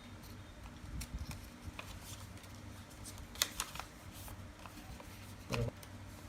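Sheet of paper being handled and folded: scattered crinkles and small taps, a quick flurry of crackles about three and a half seconds in and a dull knock near the end, over a steady low hum.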